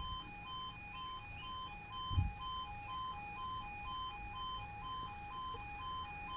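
Level crossing audible warning alarm sounding its two-tone yodel, a higher and a lower note alternating evenly about twice a second while the barriers are down. A brief low thump comes about two seconds in.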